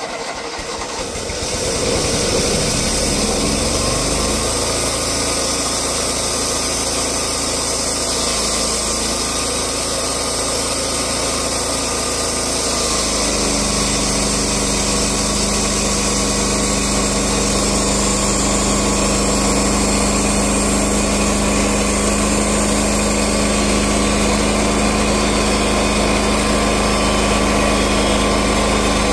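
Wood-Mizer portable band sawmill's engine running, rising in level over the first two seconds as it is throttled up. About halfway through the sound shifts and steadies as the band blade feeds into the tulip poplar log and starts cutting.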